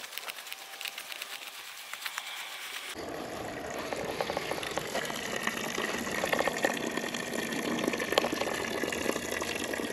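Water pouring and splashing from the open end of a 1-inch black poly pipe onto bare dirt, gravity-fed downhill from a holding tote. For the first three seconds there is only a light rustling hiss; then the splashing comes in abruptly and grows louder toward the end.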